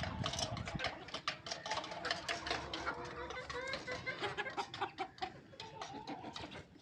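Rhode Island Red hens clucking and chicks cheeping, with many quick sharp taps among the calls.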